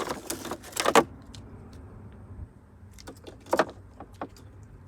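A few sharp clicks and knocks from hands handling an RC boat's hot LiPo battery pack while it is checked for swelling, over a faint low hum.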